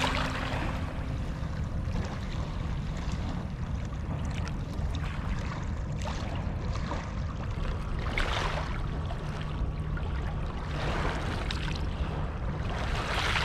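Small lake waves lapping and washing over a pebble shore, swelling with a hiss every few seconds over a low steady rumble.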